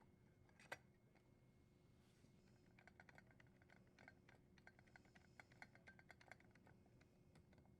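Faint, irregular small clicks and ticks of a screwdriver and small metal parts, several a second through the middle of the stretch, as the screw securing the dishwasher's junction box cover is driven back in.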